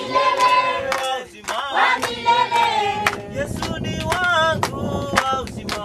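A group of men and women singing a Swahili hymn together, with hand claps keeping time.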